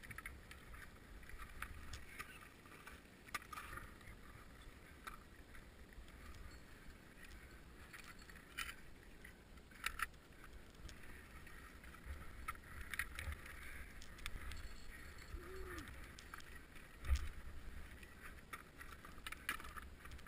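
Faint climbing noise: crampon points scraping and clicking on granite and snow, and gear clinking, in scattered sharp clicks and knocks, the loudest about 10 s and 17 s in, over a steady low rumble of wind or handling on the camera.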